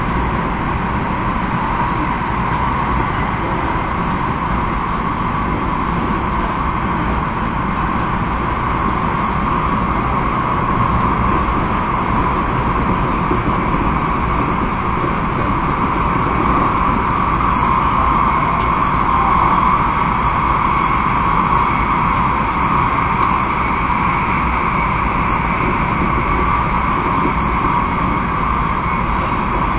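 Steady running noise heard inside a Taiwan High Speed Rail 700T high-speed train travelling through a tunnel, a constant rushing hum that swells slightly about a third of the way in and eases again near the end.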